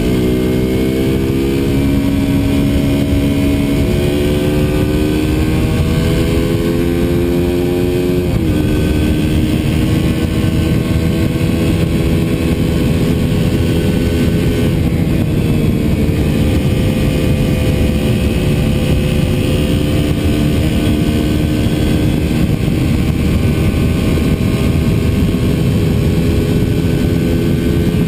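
KTM RC200's single-cylinder four-stroke engine pulling under acceleration, its pitch rising, then dropping sharply at a gear change about eight seconds in, before running steadily at cruising speed. Heavy wind rush on the low-mounted camera runs under the engine.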